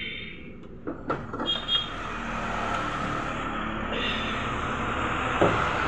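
Plastic back cover of a CRT television being pried off and lifted away: a few sharp plastic knocks and clicks about a second in, and another near the end. Underneath, a steady rushing noise grows louder.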